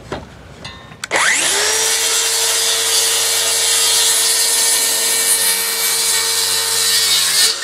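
Handheld circular saw spinning up about a second in and cutting upward through the end of a timber rafter, running steadily, then spinning down at the end.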